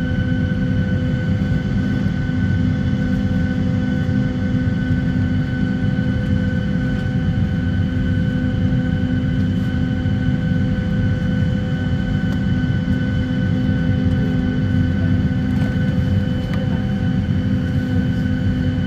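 Steady cabin hum of a parked Boeing 737-800, its air-conditioning running, with a steady low drone and several constant tones on top.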